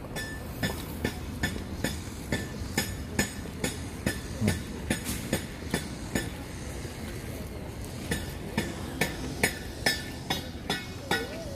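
Hammer blows on metal, struck steadily about two to three times a second, each with a short metallic ring. The hammering pauses about six seconds in and starts again two seconds later.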